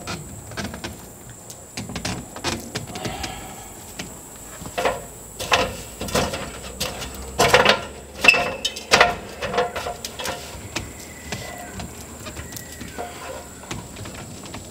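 Irregular knocks and clanks of a man climbing an aluminum extension ladder, with the loudest knocks about seven to nine seconds in.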